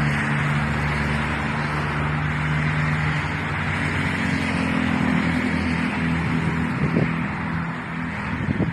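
Steady engine drone with a low, even hum under a wide rushing noise.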